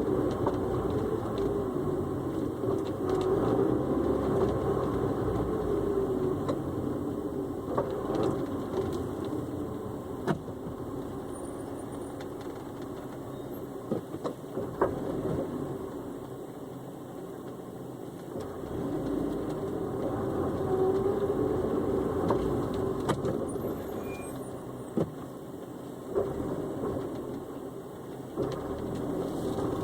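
Honda S2000 running, its engine noise swelling and fading over several seconds, with several sharp clunks now and then: the unexplained clunk the owner is trying to record.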